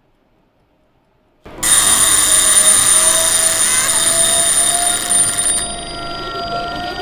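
Near silence, then about a second and a half in a sudden loud synthesized sound effect of magical energy starts. It is a dense shimmering hiss with several steady ringing tones and one tone slowly rising, and it eases to a lower level about four seconds later.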